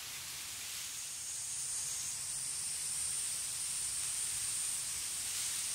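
A steady, high-pitched insect chorus buzzing in a summer reed bed, over a soft hiss; one thinner note in it drops out about two seconds in.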